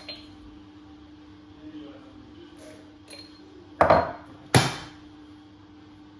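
Kitchen things handled on a counter during coffee making: a few light clicks and taps, then two loud knocks under a second apart, the second ringing briefly. A faint steady hum runs underneath.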